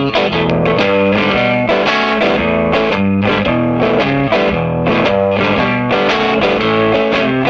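1973 Fender Jazzmaster electric guitar played through a Swart AST Pro amp set to a mildly overdriven, slightly dirty tone: a steady run of picked notes and chords changing about every half second.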